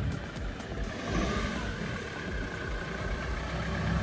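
Land Rover Defender engine running as it pulls out and drives slowly closer, growing louder near the end.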